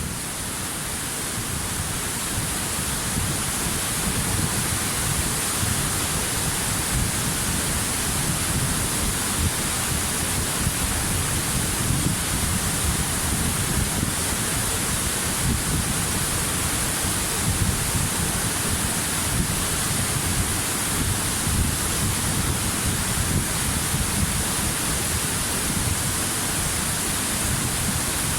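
Waterfall: water crashing steadily into a pool, a dense unbroken rush with a deep low rumble. It swells a little over the first couple of seconds, then holds even.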